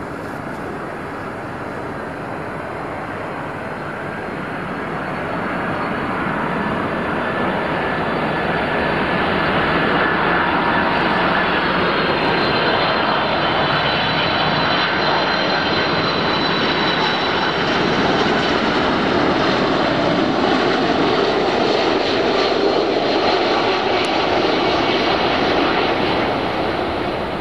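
Boeing 747-400's four jet engines on final approach, the roar growing louder as the jet comes close and low, with a high fan whine on top that drifts slightly down in pitch as it passes; the sound eases off near the end.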